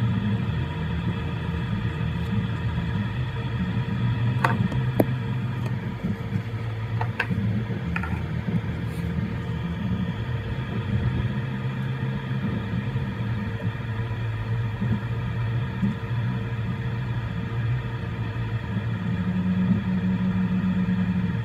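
Voron 3D printer printing: stepper motors whirring in short tones that keep changing pitch as the head moves, over a steady fan hum, with a few brief chirps in the first half.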